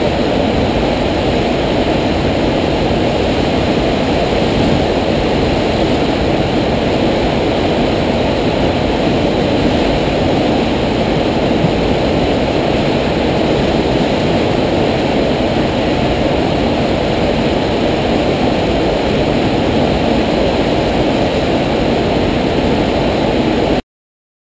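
Steady, loud rush of water being pumped up and over the FlowBoarder's sheet-wave ride surface, a constant low-pitched noise without change. It cuts off abruptly near the end.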